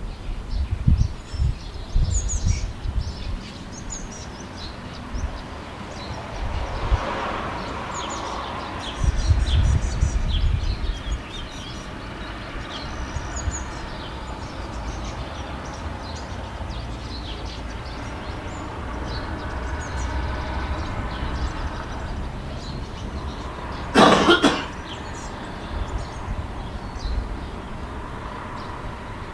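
Outdoor ambience: small birds chirping throughout over a low, gusting rumble, with a faint distant mechanical hum that swells and fades twice. A short, loud noisy burst stands out about three quarters of the way through.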